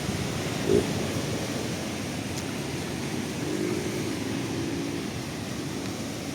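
Ocean surf washing on a beach, a steady rush of noise. There is a short knock about a second in and a faint hum in the middle.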